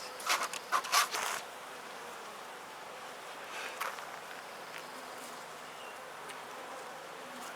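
Honeybees buzzing steadily around an opened top bar hive, with a cluster of sharp clicks and knocks in the first second and a half.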